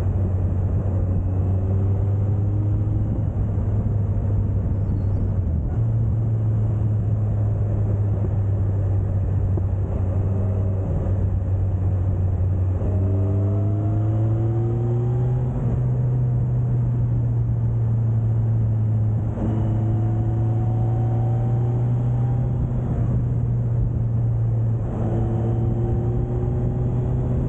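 Suzuki GSX1250FA's inline-four engine running under way, with steady wind and road noise. Its pitch climbs in slow rising sweeps about five times as the bike accelerates.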